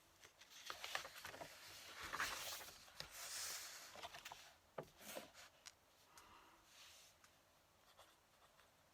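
Fountain pen nib scratching across paper in short strokes, with a few light ticks. It fades to faint scratching about five and a half seconds in.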